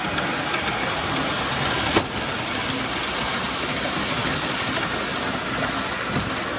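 O gauge model train rolling past close by on tinplate tubular three-rail track: a steady rumble of metal wheels on rail, with one sharp click about two seconds in.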